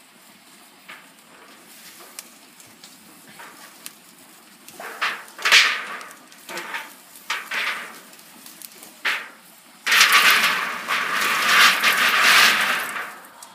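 Distilled rubbing alcohol burning in an aluminium foil tray. Several short rushing hisses come in the middle, then a louder hiss of about three seconds as the flames flare up high near the end.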